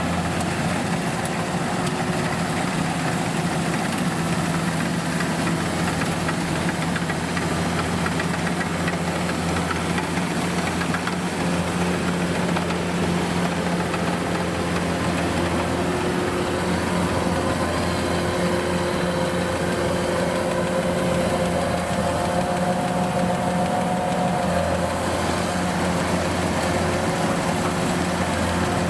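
A large engine running steadily at a constant speed, with an even low hum.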